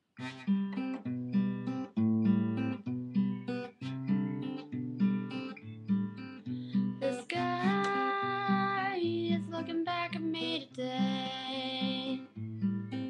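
Acoustic guitar playing a song intro, a repeating chord pattern that starts suddenly. In the second half, long held higher notes come in twice over the guitar.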